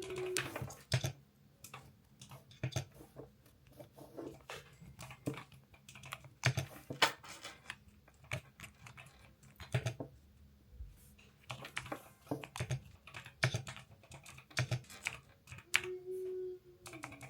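Typing on a Yunzii cat mechanical keyboard: irregular keystrokes with a deep, muffled "creamy, thocky" sound.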